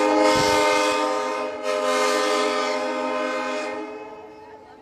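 Train whistle sounding a long, loud chord of several notes over the rush of the passing train, then fading out about four seconds in.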